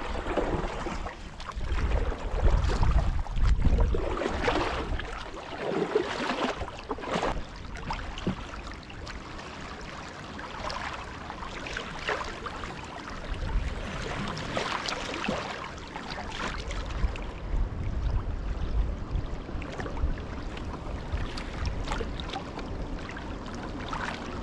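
Canoe paddle strokes splashing and dripping in the water as the canoe glides along, with water washing past the hull. Wind rumbles on the microphone in gusts.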